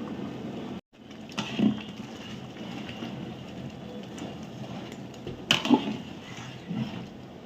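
A few sharp knocks and clatters of a metal utensil against a large cooking pot, over a steady low background noise.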